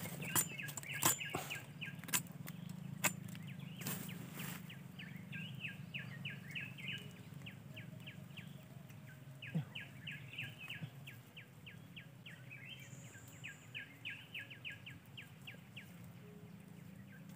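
Several sharp snaps and clicks in the first few seconds as hands work twigs and dry bamboo litter, then quieter handling, over a continuous fast run of short high chirps from forest wildlife.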